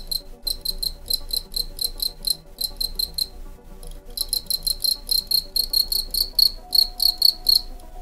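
Male European field cricket (Gryllus campestris) singing its calling song: high-pitched chirps in quick, even succession, which break off briefly about halfway through and stop just before the end.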